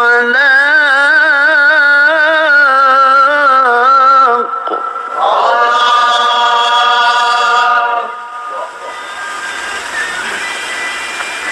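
A solo voice chanting an Arabic recitation in long, drawn-out melismatic notes with strong vibrato. The chant ends about 8 seconds in, leaving a quieter steady hiss of room noise.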